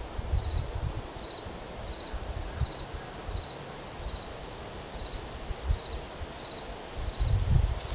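A cricket chirping steadily: short, high, pulsed chirps at an even pace of about three every two seconds. Low rumbles on the microphone run underneath and grow loudest near the end.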